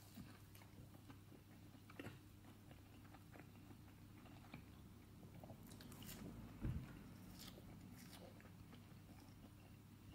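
Faint biting and chewing of a breaded chicken bite, with a few soft, scattered crunches and one soft thump about two-thirds of the way in, over a low steady hum.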